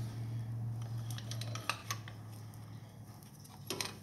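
Light metal clinks and taps of a quick pad spreader tool being fitted against a rear disc brake caliper, with a few sharper clicks about two seconds in and near the end, over a steady low hum.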